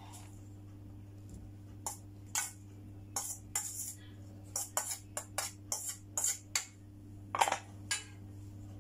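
A spoon scraping and knocking against a stainless steel colander as lumpia filling is scooped out onto a plate: a run of sharp metallic clicks and scrapes, loudest near the end, over a steady low hum.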